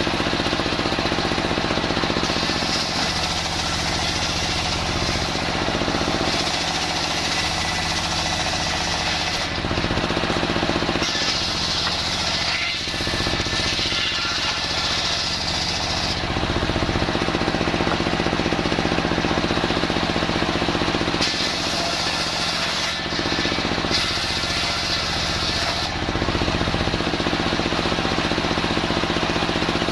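A homemade motor-driven circular sawmill running steadily as it saws old timber. Its drone is constant, and the higher cutting noise of the blade changes every few seconds.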